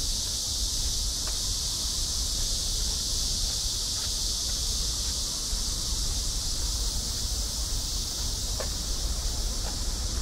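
Steady, high-pitched chorus of insects over a low rumble, with a few faint ticks scattered through.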